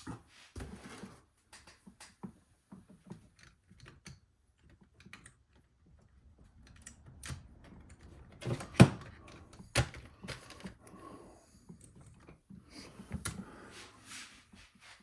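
Scattered light clicks and knocks of small plastic kit parts and tools being handled and set down on a workbench, with two sharper knocks a little past the middle.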